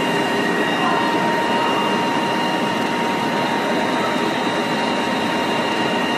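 Aluminium foil printing machine running: a steady, even machine noise with a constant high whine held throughout.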